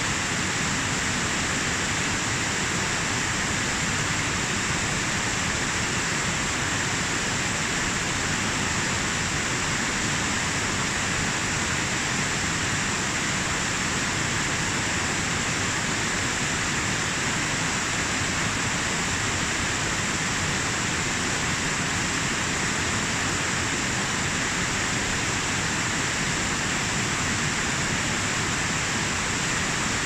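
Mountain waterfall cascading over a steep bed of boulders: a steady, unbroken rush of white water.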